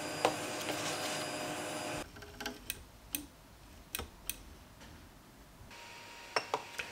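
A power tool's electric motor running steadily, stopping abruptly about two seconds in. Then scattered sharp clicks and taps.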